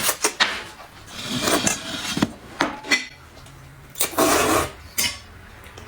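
Noodles being slurped in several loud, noisy bursts, with a few sharp clicks of chopsticks or bowls in between.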